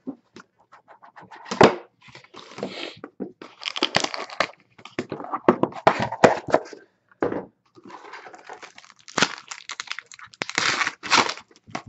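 A cardboard trading-card box being opened and a plastic-wrapped card pack pulled out and torn open: an uneven run of sharp cracks, crinkles and rustling.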